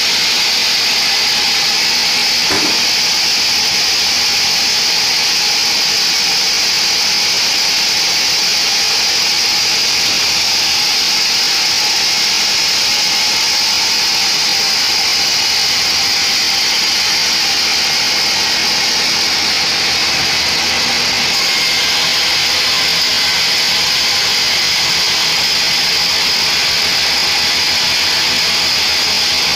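Band sawmill running steadily with its blade cutting through a mahogany log: a loud, even, hissing machine noise. There is one short knock about two and a half seconds in.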